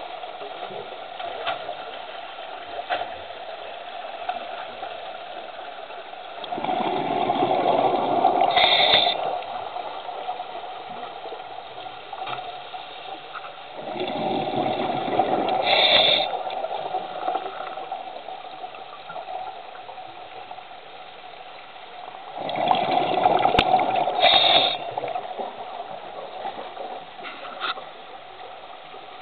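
Scuba diver's exhaled breath bubbling out of the regulator underwater, three times, each rush lasting two or three seconds and coming about eight seconds apart, over a steady underwater hum.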